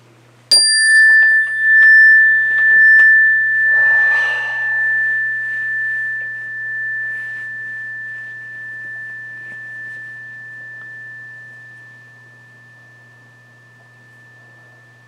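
Meditation bell struck once, about half a second in. It rings a single high, pure tone that wavers slowly and fades away over about twelve seconds.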